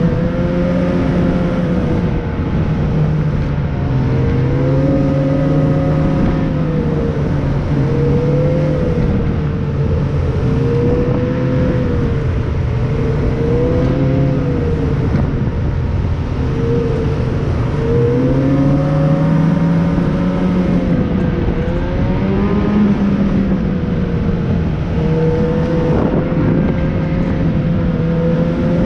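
A motor vehicle's engine running while under way, its pitch rising and falling every few seconds as the throttle changes, over a steady rushing noise.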